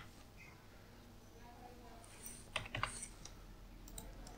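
Faint keystrokes on a computer keyboard: a handful of scattered key clicks starting about two seconds in.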